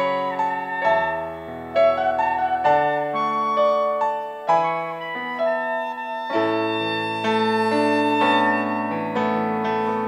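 Instrumental introduction to a choir anthem: a saxophone playing a slow melody over piano accompaniment.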